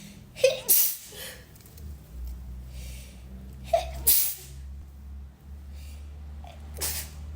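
A woman sneezing several times in sudden sharp bursts: a quick pair about half a second in, another around four seconds in, and one more near the end.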